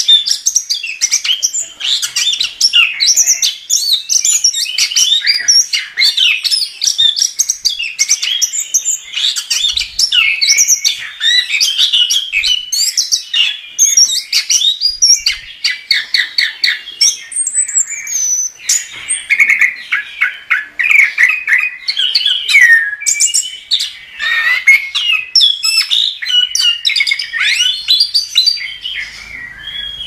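Chestnut-capped thrush (anis kembang) singing loudly and without let-up: a continuous stream of rapid, varied whistled phrases and chirps, with hardly a pause.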